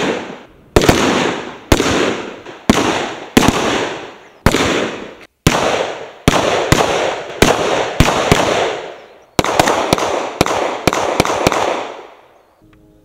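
Gunfire from soldiers' rifles: a string of single shots at an irregular pace, about one or two a second, each ringing out with a trailing echo. The firing stops near the end.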